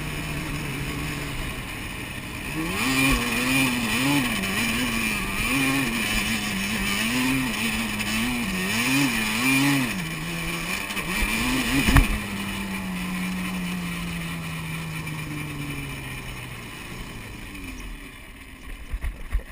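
Yamaha Banshee quad's two-stroke twin engine running steadily, then revved up and down again and again under hard throttle in the sand. A sharp knock about twelve seconds in is the loudest sound; after it the engine holds a steadier note that slowly drops and fades away.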